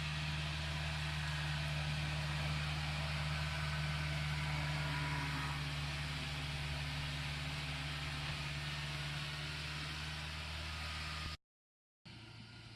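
Kubota crawler combine harvester's diesel engine running steadily as the machine drives through mud, a low constant hum with a hiss over it. Near the end the sound cuts out for about half a second and a quieter engine sound follows.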